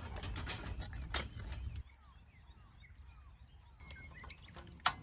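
Irregular light clicks over a low rumble. After a sudden cut comes a quieter stretch of small birds chirping, ending on one sharp click.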